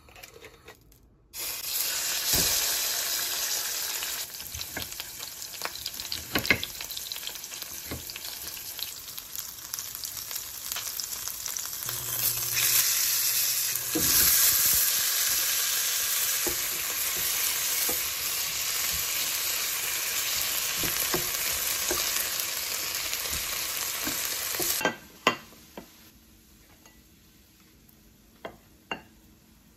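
Salmon fillet frying in hot oil in a ceramic-coated pan, a loud steady sizzle that starts suddenly as the fish goes in and grows louder about halfway when sliced onion is tipped into the pan. The sizzle cuts off near the end, followed by a few light clicks of a wooden spoon on a ceramic plate.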